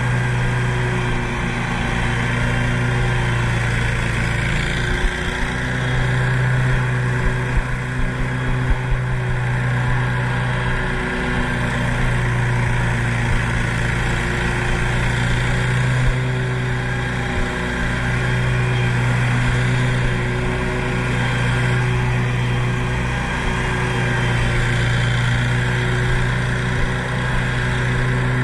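Stand-on zero-turn mower's engine running steadily under load while mowing semi-wet grass, with slight swells in level and a few brief knocks about six to nine seconds in.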